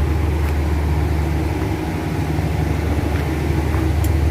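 Steady low drone of an anchor-handling supply ship's engines and machinery running.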